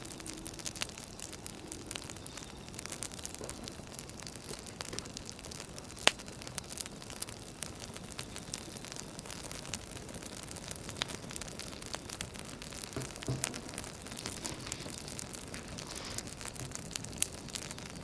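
Wood fire crackling: a steady hiss with scattered small pops, and one sharp louder pop about six seconds in.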